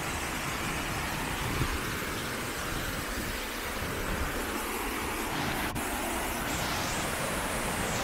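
Water rushing steadily down a tiered waterfall, a constant even rush of white noise.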